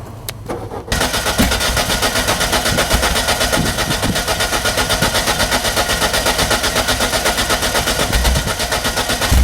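Peugeot 106's small 1.0-litre petrol engine on a cold start: a few clicks, then about a second in a sudden, rapid, even pulsing clatter of the engine turning over and running.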